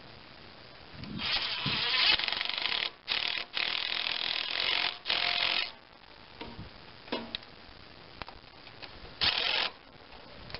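Cordless impact driver with an extension running bolts into an engine's intake manifold in several bursts: one long run, three shorter ones close together, then a short final burst near the end. Light clicks come between the bursts.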